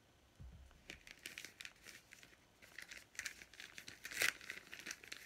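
Thin plastic packaging crinkling and crackling as it is handled and pulled open, in an irregular run of crackles that starts about half a second in and is loudest about four seconds in.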